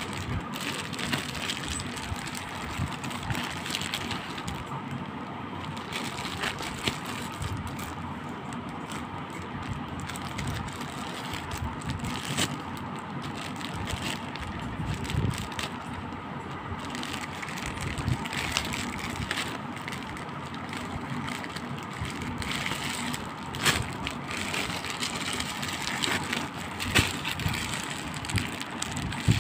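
Crinkling and crackling of a thin plastic wrapping bag as a plastic football is unwrapped and handled close to the microphone, with a few sharper cracks in the last several seconds.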